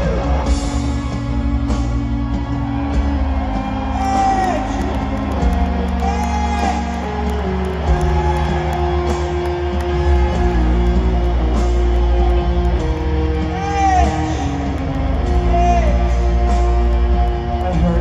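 Live rock band in a large hall: a lead electric guitar playing long, sustained notes with repeated bends, over a steady bass line.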